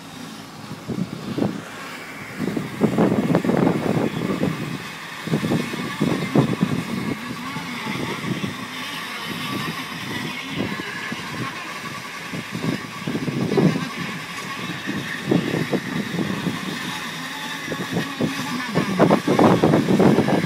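Motorboat running at speed, its engine under wind buffeting the microphone in irregular gusts.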